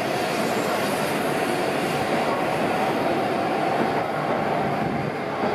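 Hokuriku Shinkansen train pulling out along a station platform, its cars rolling past with a continuous running rumble and a steady mid-pitched hum.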